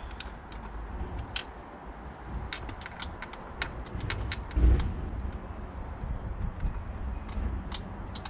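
Scattered metallic clicks and clinks of a spark plug socket and extension being worked off a spark plug in a car's engine bay, with one heavier dull knock about halfway through.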